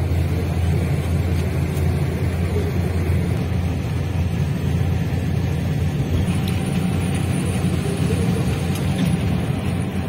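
Steady low rumble of road and engine noise inside a coach cruising at motorway speed.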